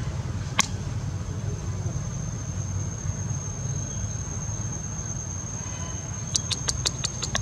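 Steady, high-pitched insect drone over a constant low rumble. A single sharp click comes about half a second in, and a quick run of about seven clicks comes near the end.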